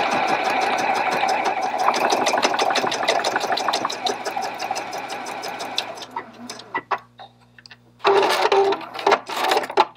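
Juki HZL-X3000 computerized sewing machine stitching steadily at speed with a rapid, even needle rhythm, feeding a pant hem up and over a thick side seam. It stops about six seconds in, followed by a few clicks and a short clatter near the end.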